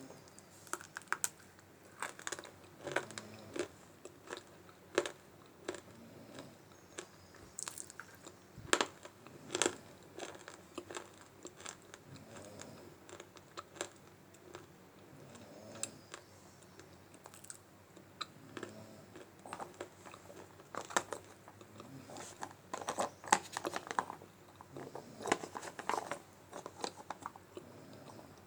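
Multani mitti (fuller's earth clay) being bitten and chewed: irregular sharp crunches, coming thicker and louder in the last few seconds.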